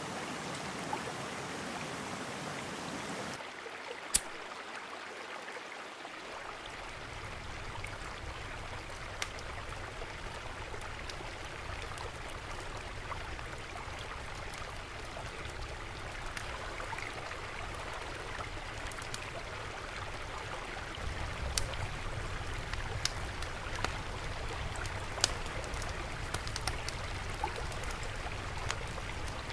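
Stream water flowing steadily, with a rushing, trickling hiss and occasional sharp clicks and drips. The sound changes character about three and a half seconds in.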